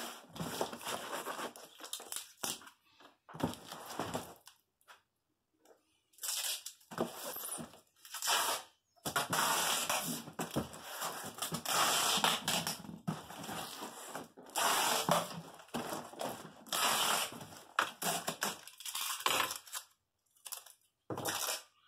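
Packing tape pulled off its roll in several long screeching stretches and pressed onto a cardboard box, with hands rubbing over the box between pulls. There is a short quiet gap about five seconds in.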